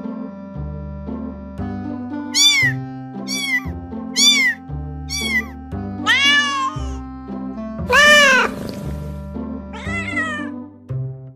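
A cat meowing over background music: four short high meows in quick succession, then longer drawn-out meows, the loudest and longest about eight seconds in.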